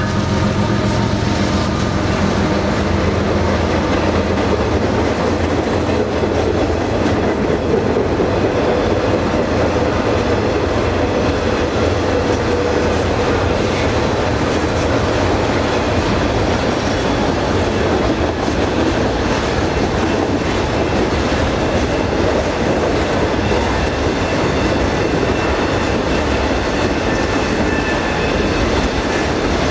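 Freight train rolling past: the engine drone of the last of three BNSF diesel locomotives fades in the first few seconds. Then a long string of autorack cars goes by, with a steady rumble and clatter of steel wheels on the rails.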